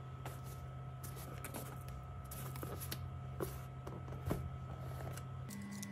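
Faint scattered light clicks and taps over a steady low hum; the hum stops shortly before the end.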